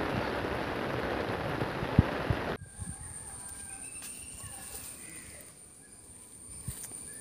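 Heavy rain pouring onto a flooded stream and the leaves around it, with a couple of loud drip knocks. The rain cuts off abruptly after about two and a half seconds, leaving a much quieter scene with a steady high thin whine and a few faint bird calls.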